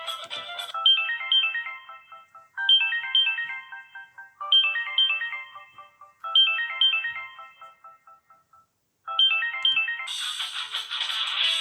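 Built-in ringtone of a Samsung GT-I5500 Galaxy Europa playing through the phone's loudspeaker: a short, bright melodic phrase repeated four times. After a pause of about a second, a different, fuller ringtone starts near the end.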